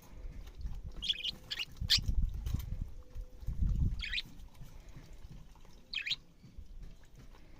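Albino budgerigar chirping in short high tweets: several close together in the first two seconds, then single chirps about two seconds apart. A low rumble sits under the first four seconds.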